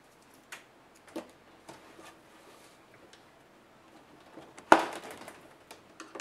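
Scattered light clicks and taps of hands handling tools and the plastic laptop display assembly on a work mat, with one louder knock and a short rustle about three-quarters of the way through.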